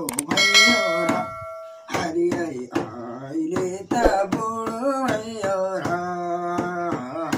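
A voice singing a song melody, with held notes that bend up and down. Near the start a bright bell chime rings for about a second: the sound effect of the on-screen subscribe-button animation.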